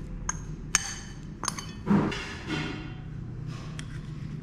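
Glass bowls knocking together: a few sharp clinks and one louder dull knock about two seconds in as chopped herbs are tipped from a small glass bowl into a larger one.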